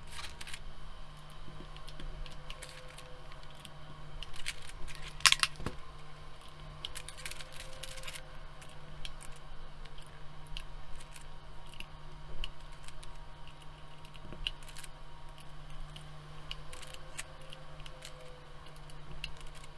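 PBT keycaps being pressed onto the clicky Razer Green switches of a BlackWidow V3 TKL keyboard: scattered short plastic clicks and taps, with a louder cluster of clicks about five seconds in.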